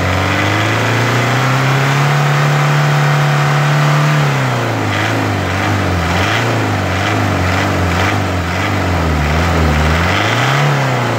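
Toyota 2C four-cylinder diesel engine running, its speed raised at the start and held high for about four seconds, then dropped back toward idle. After that the engine speed rises and falls gently every second or so, with one more small rise near the end, as the injection pump lever is worked by hand.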